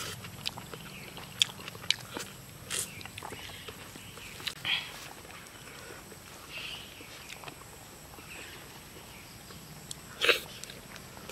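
Mouth sounds of a man eating rice and pork curry by hand: scattered lip smacks and chewing clicks, with a few short louder bursts. The loudest comes about ten seconds in, as a handful goes into his mouth.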